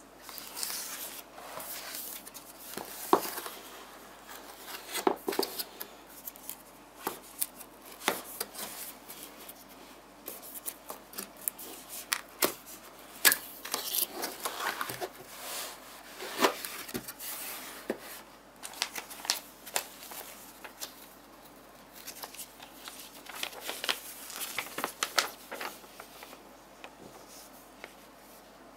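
Typing on a Rosewill RK-9000 mechanical keyboard with clicky Cherry MX Blue switches: quick, uneven runs of sharp key clicks with short pauses between them, thinning out near the end.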